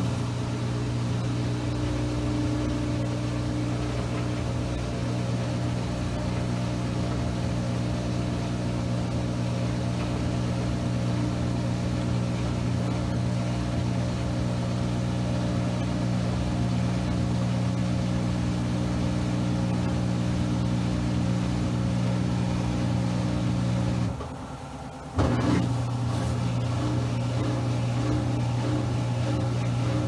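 Maytag MHW5630HW front-load washer spinning its drum at high speed, around 1160 RPM: a steady hum of motor and drum. It drops out briefly about three-quarters of the way through, then resumes at the same pitch.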